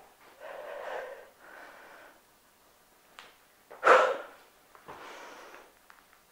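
A woman breathing hard from exercise: several rough breaths, the loudest a sharp, forceful exhale about four seconds in.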